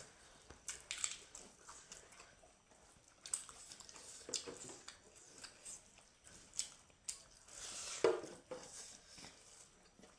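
Close-up sounds of a person biting and chewing smoked pork: irregular short crunches and mouth clicks, loudest about eight seconds in.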